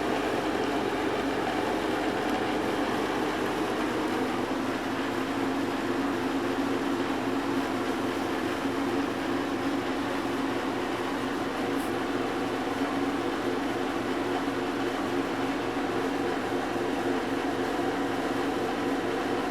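Room air conditioner running steadily: a continuous fan and compressor hum with a wash of noise, with the water collected in the back of the unit audible in it.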